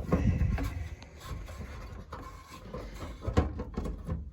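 Handling noise from work on a furnace: irregular rubbing and scraping with scattered knocks, and a sharp knock about three and a half seconds in.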